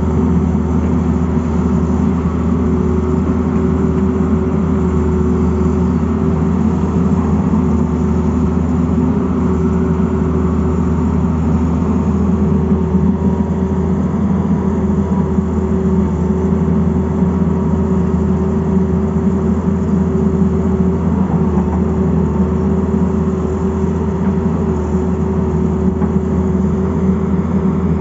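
Tata Hitachi Zaxis 220LC excavator's diesel engine running steadily and loud, close by, with a constant hum and a steady whine.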